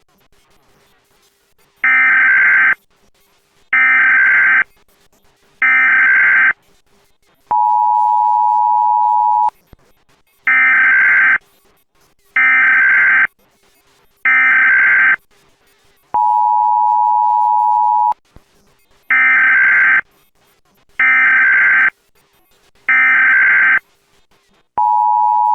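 Emergency Alert System SAME header data bursts: three harsh one-second digital bursts, then about two seconds of the steady two-tone EAS attention signal, the pattern repeated three times.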